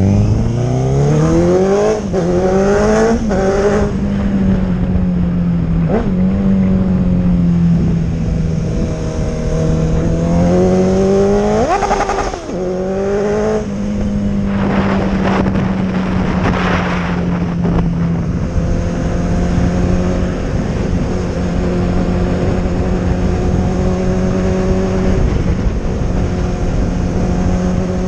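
Honda CB1000R's inline-four engine running through an aftermarket sport exhaust, revving up and down several times, with a sharp climb about twelve seconds in, then holding a steady pitch for the last ten seconds.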